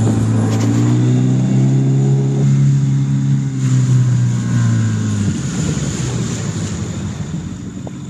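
Mercury outboard motor on an inflatable coach boat running under way with a steady hum. The pitch rises slightly about two and a half seconds in. The hum drops away about five seconds in, leaving quieter water wash and wind noise.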